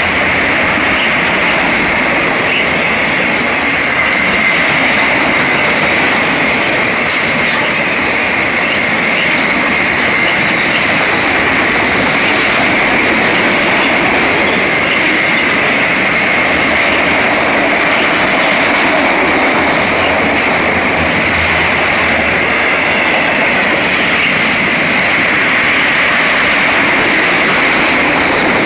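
Freight train of autorack cars rolling past close by: a loud, steady noise of steel wheels running on the rails that goes on unbroken.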